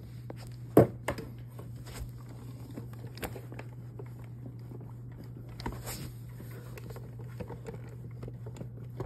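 Handling noise from a plastic animatronic penguin figure being picked up and moved: scattered knocks and small clicks, the loudest about a second in, over a steady low hum.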